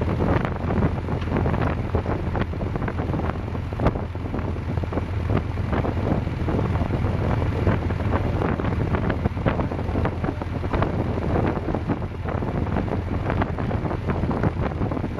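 Wind buffeting the microphone over the steady low drone of a Dutch barge's engine running under way.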